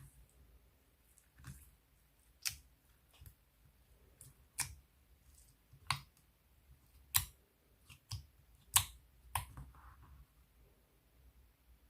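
Clear slime being pressed and folded by hand, giving sharp popping clicks as trapped air bursts, about one every second at uneven intervals.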